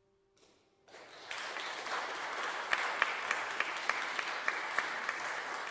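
Audience applauding. The clapping starts about a second in and quickly builds to steady applause, with individual claps standing out.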